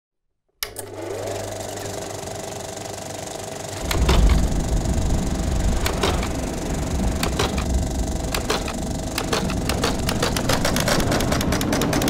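Film-projector whir with the crackle and irregular pops of old film, starting just after half a second in. A low rumble joins about four seconds in, and the pops come thicker near the end.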